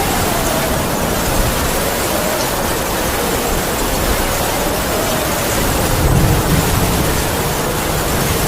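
Heavy rain falling as a steady hiss, with a howling wind whose pitch wavers and slowly sinks. A low gust swells about six seconds in.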